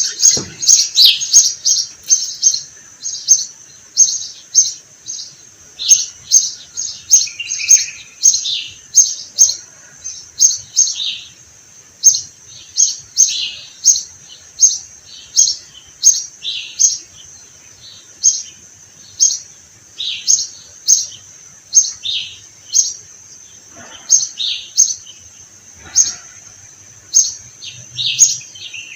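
Sparrows chirping: a steady stream of short, high chirps, about two a second, overlapping at slightly different pitches.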